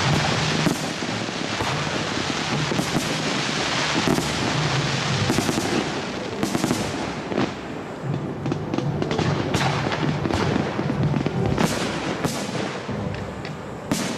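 Aerial fireworks going off in quick succession: a dense, continuous crackle with many sharp bangs, and one louder bang near the end.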